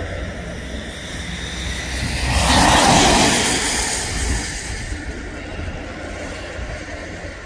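Gulfstream G550 business jet's twin turbofans running as it rolls along the runway. The jet noise swells to a peak about three seconds in and then fades, over a steady low rumble.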